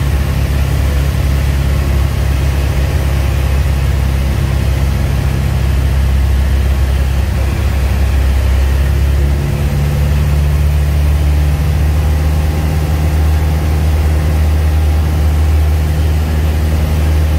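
Cabin drone of a Piper Cherokee Warrior's (PA-28-151) four-cylinder Lycoming engine and propeller in flight on final approach, a steady low hum. The engine note changes slightly about nine seconds in.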